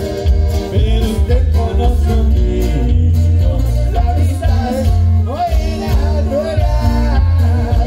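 Norteño band playing, with heavy bass and steady held chords; a voice singing comes in about a third of the way through.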